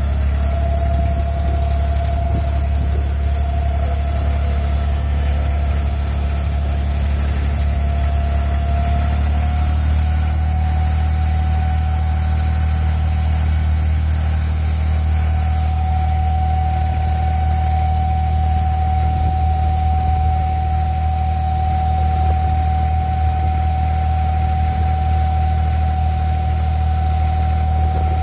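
A tour boat's engine running steadily, heard from on board: a deep, even hum with a higher whine over it that steps up slightly in pitch about ten seconds in.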